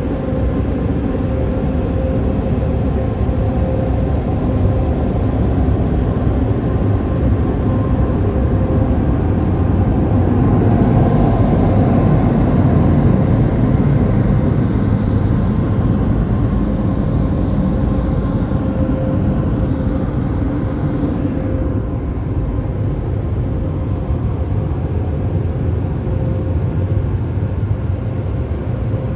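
PDQ Razor touch-free car wash gantry working over the car, heard from inside the cabin: a steady rush of water spray and machinery over a constant hum. It grows louder and hissier from about ten seconds in, as spray sheets over the windows, and eases off after about twenty seconds.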